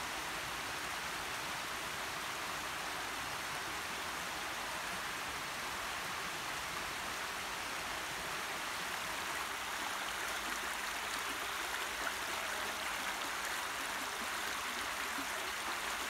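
Shallow stream running over stones: a steady rush of water.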